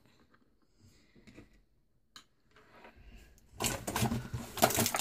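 A few faint clicks, a sharper one about two seconds in. Then, from about three and a half seconds, loud handling noise close to the microphone: dense rustling with quick knocks.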